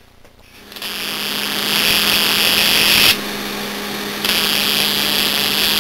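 High-voltage electrical discharge arcing between a wire and tap water in a cup, a sizzling hiss over a steady buzz. It starts about a second in, the hiss drops back for about a second past the middle while the buzz goes on, then it comes back.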